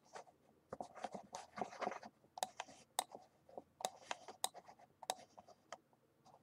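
Faint computer mouse clicks, a sharp click every half second to a second, with soft scratchy sounds of the mouse sliding on the desk in between as the view is dragged around.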